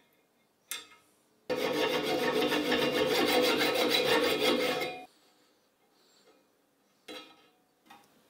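Fine-toothed frame saw cutting through a brass tube rivet in a rusty steel cleaver handle: a loud, fast rasping that starts about a second and a half in and stops sharply about three and a half seconds later. A brief scrape comes before it, and two short clicks come near the end.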